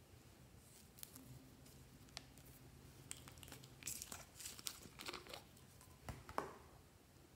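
Faint crinkling and clicking of a plastic soda bottle being gripped and squeezed, with soft squelches as thick slime pours out of it. The loudest click comes near the end.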